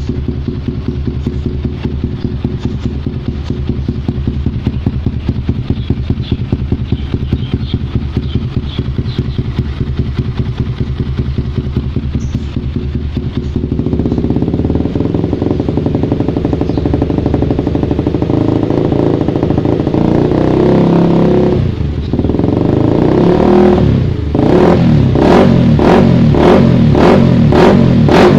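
Honda CBR150R single-cylinder four-stroke engine running through a DBS carbon aftermarket exhaust: a steady idle at first, then held at higher revs from about halfway, dropping briefly, then revved in quick repeated blips about twice a second near the end.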